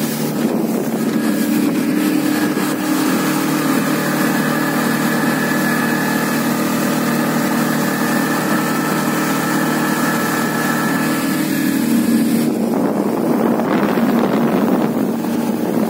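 Suzuki outboard motor on an inflatable boat running steadily at speed, a constant engine tone over rushing water. About twelve seconds in, the steady tone breaks off into a rougher rushing noise.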